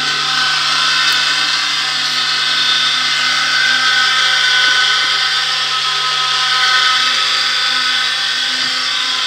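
12V electric motor driving a gear reducer, running steadily with an even-pitched whine over a low hum.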